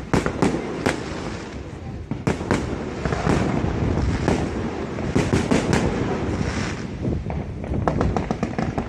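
New Year fireworks going off continuously: a dense rumble of overlapping bangs, with quick clusters of sharp crackling pops about halfway through and again near the end.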